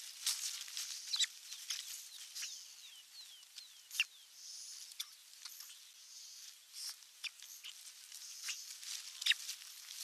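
Scratchy rustling and sharp clicks of sticks and feathers in a stick nest as a raven pecks and tugs at osprey chicks. A quick run of five or so short falling bird chirps comes about two seconds in.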